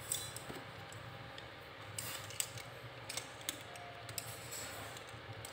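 Faint, scattered clicks and light metallic taps of steel bread knives being handled and set down, one at a time with irregular gaps.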